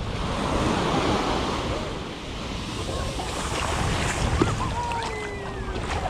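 Small ocean waves breaking gently and washing up the sand at the shoreline, swelling about a second in and easing off, with wind buffeting the microphone.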